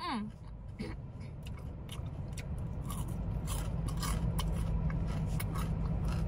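A person chewing and crunching food, with scattered sharp clicks, over a steady low rumble that slowly grows louder. It opens with a short falling hum of voice.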